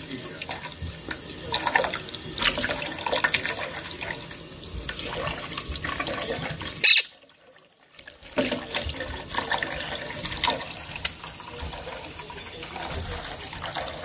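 Kitchen tap running into a stainless steel sink while a Quaker parrot splashes and flaps its wings in the stream, with sharp splashes over the steady water. The sound cuts to near silence for about a second, around seven seconds in.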